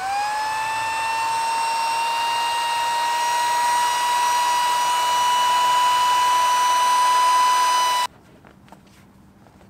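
Handheld corded electric air pump inflating an air mattress. Its motor whines up to speed at the start, runs steadily with its pitch creeping slightly higher, then cuts off suddenly about eight seconds in.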